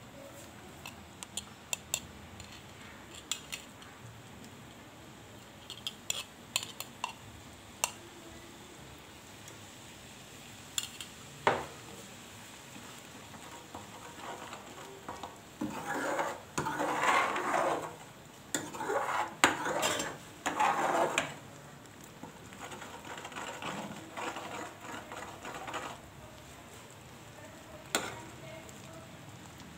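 Steel ladle stirring dal in a metal pan, scraping along the pan with scattered clinks against its rim. The stirring comes in several long strokes, heaviest a little past halfway.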